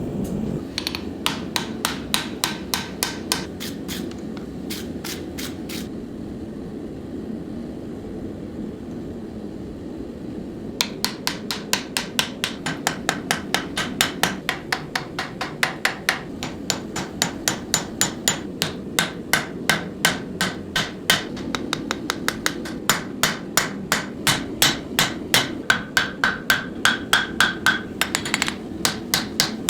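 Hammer blows on hot steel on an anvil while forge welding an axe edge, about three ringing strikes a second. A short run of blows, a pause of several seconds, then a long steady run to the end, all over a steady low rushing noise.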